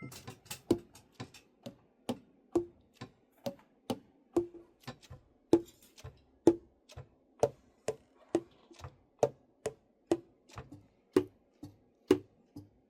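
Yanagisawa T-50 tenor saxophone keys being worked by hand, the pads slapping shut on the tone holes in a run of sharp clicks about two a second, each with a short popping tone that changes pitch from key to key.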